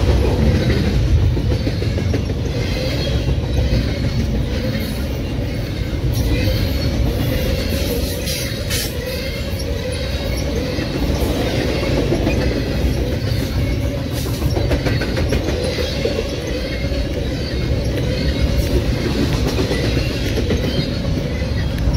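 Double-stack intermodal container train's well cars rolling past close by: a steady loud rumble and clatter of steel wheels on rail, with a faint high wheel squeal at times.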